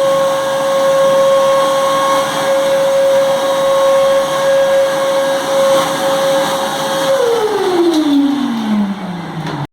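Eureka Forbes Trendy Zip vacuum cleaner running with a steady whine and rushing air, then switched off about seven seconds in, its motor falling in pitch as it spins down before the sound cuts off abruptly.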